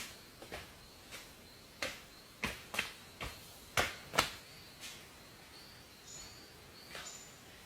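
A series of irregular sharp clicks and knocks, about a dozen, with a few faint short bird chirps near the end.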